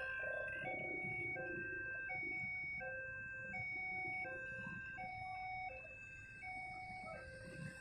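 Railway level-crossing alarm sounding an electronic two-tone chime, alternating a higher and a lower note about every 0.7 seconds; it gets quieter about three-quarters of the way through.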